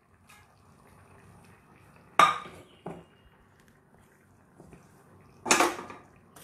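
A metal pan being set on a gas stove, clanking against the burner grate: two sharp, ringing metal clanks about three seconds apart, with a smaller knock just after the first.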